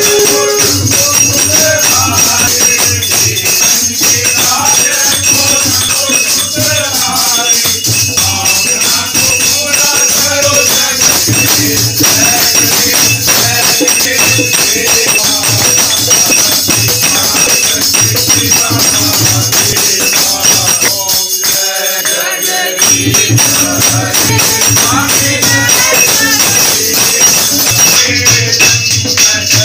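Group devotional aarti singing with a dholak drum keeping a steady beat and jingling hand percussion. The drum drops out for a couple of seconds about three-quarters of the way through, then comes back in.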